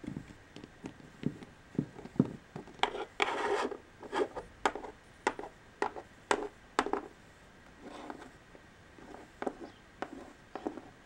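Small plastic Littlest Pet Shop figurines being handled on a tabletop. Irregular light knocks and taps as they are set down, with longer scrapes about three seconds in and again near eight seconds.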